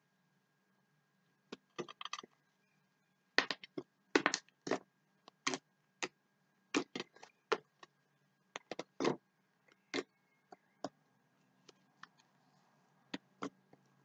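Fluffy slime being stretched, folded and kneaded by hand, giving irregular sharp clicks and pops, sometimes several in quick succession, starting about a second and a half in.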